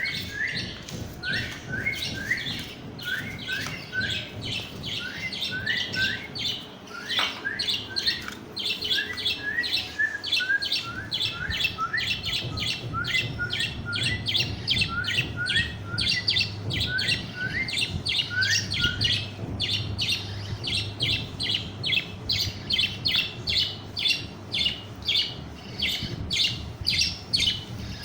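Budgerigar chick calling in a rapid, continuous string of short chirps, several a second; through the first half many of the chirps are led by a short rising note.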